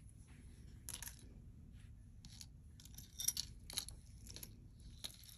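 Faint light clicks and clinks of small metal and glass jewelry pieces knocking together as they are picked up and handled, a scattered handful of taps with the sharpest a little past the middle.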